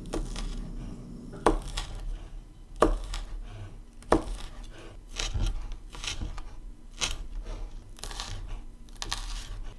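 Chef's knife chopping a green chili on a cutting board: three sharp knocks of the blade on the board about a second and a half apart, then quicker, lighter chopping as the chili is minced.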